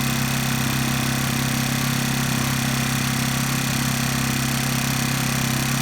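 Honda EU1000i inverter generator's small four-stroke engine running at a steady speed with an even hum. It is burning oil: the owner points to smoke coming from it.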